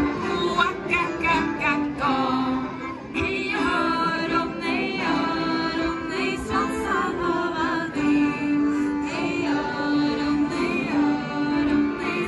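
A Swedish midsummer folk song, sung with instrumental accompaniment and played over outdoor loudspeakers, with the crowd clapping along.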